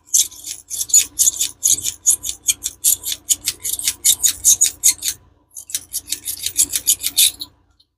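Small hand tool rasping a hole through a cured resin piece in quick short strokes, about four a second, with a brief pause a little past halfway.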